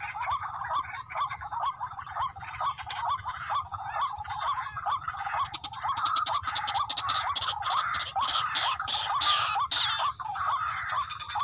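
Rail (tikling) calling: a steady series of short rising notes, about three a second. From about six seconds in, louder sharp clicking notes join in over them for a few seconds.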